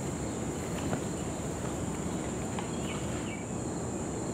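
Outdoor ambience: a steady high-pitched insect drone over low background noise, with a couple of faint short chirps about three seconds in.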